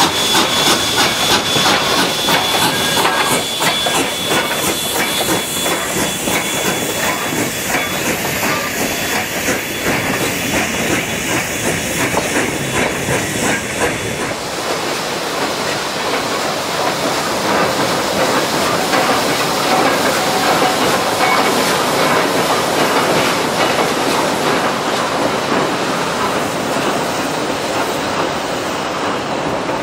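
A Durango and Silverton K-36 narrow-gauge steam locomotive works past close by, with a dense rhythmic exhaust and a steady high hiss, then its coaches roll by. About halfway through, this gives way to a train rolling across a steel truss bridge over a rushing river, with the water's steady rush.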